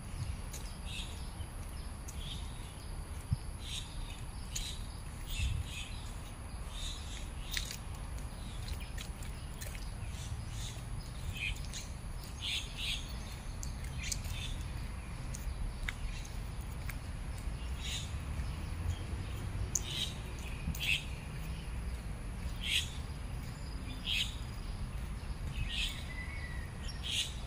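Birds chirping: many short, scattered calls throughout, over a steady low rumble.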